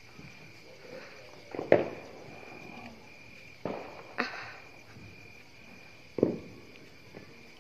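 Several sharp bangs of Diwali firecrackers, the loudest a little under two seconds in, over a steady high insect chirring.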